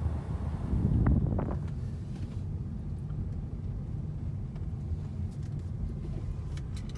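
Car driving, heard from inside the cabin: a steady low road and engine rumble, swelling briefly about a second in.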